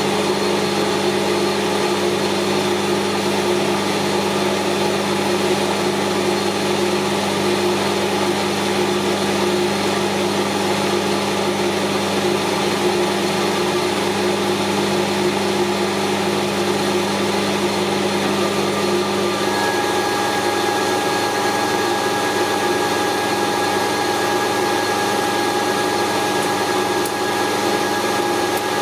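Metal lathe running steadily while the round-stock plate is turned down in diameter. About two-thirds of the way through, the low hum drops away and a higher steady tone comes in.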